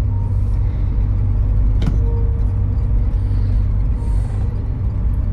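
Dark, eerie background music: a deep, steady rumbling drone with faint held notes coming and going, and one sharp click about two seconds in.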